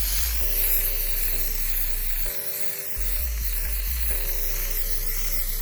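Background music of held chords over a steady bass, with a continuous hiss of aerosol spray adhesive being sprayed on headliner material.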